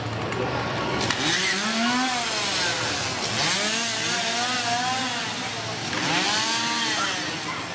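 Chainsaws of a scare-actor drill team revving, the engine pitch rising and falling in about three long swells.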